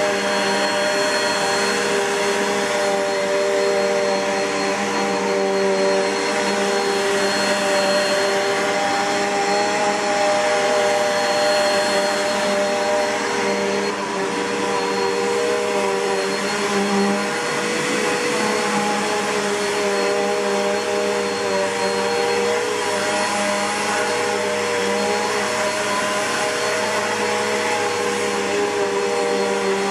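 Bissell PowerForce bagged upright vacuum cleaner running steadily, a constant motor whine over the rush of air.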